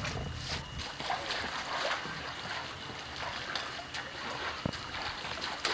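Swimming-pool water splashing and sloshing in irregular splashes as a baby is held and moved in the water.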